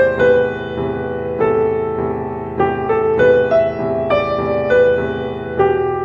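Piano music: a melody of single notes over held chords, a new note about every half second, the last one ringing out near the end.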